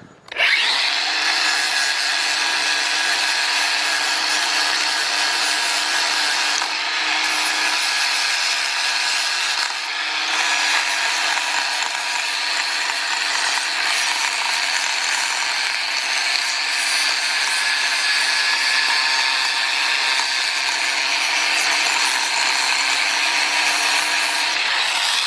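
Battery-powered power tool running steadily, cleaning a metal DC motor part, with a high whine over a grinding hiss that dips briefly twice. The tool's battery is running down.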